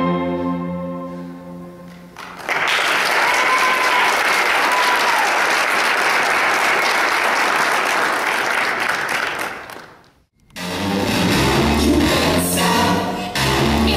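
Music fades out, then an audience applauds, with a couple of short high cheers. The applause stops suddenly about ten seconds in, and new music with guitar begins.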